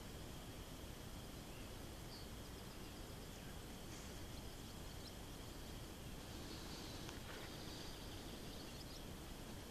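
Faint outdoor ambience: a steady low hiss of background noise with a few short, faint bird chirps scattered through it.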